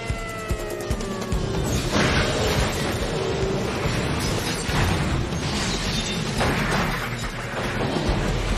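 Action-film sound mix: a music score over heavy crashes and metal clatter as cars slide off a tipping car-carrier trailer and tumble. The biggest hits come about two seconds in and again around five seconds in.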